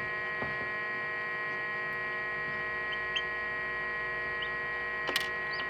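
Steady electrical hum of an egg incubator running, with a few faint, short, high chick peeps in the second half and a single click about five seconds in.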